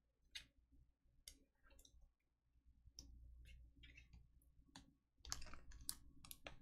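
Near silence broken by faint, scattered small clicks and taps about a second apart, growing busier in the last second or so as cards are handled at the desk.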